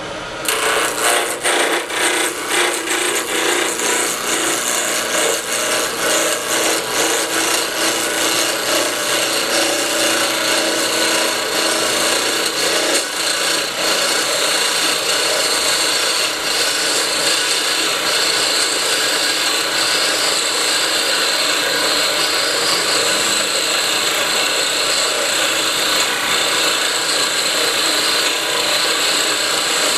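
Wood lathe spinning an Ambrosia maple ring blank on a mandrel while a hand-held turning tool cuts into it, a continuous scraping hiss of wood being peeled off as shavings. This is the blank being roughed out to near its final thickness. The sound is choppy at first and steadies after about twelve seconds.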